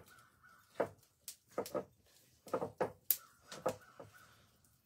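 Irregular soft knocks and slaps, about nine in all, as a whole raw chicken is handled, turned and rubbed with seasoning in a wooden bowl.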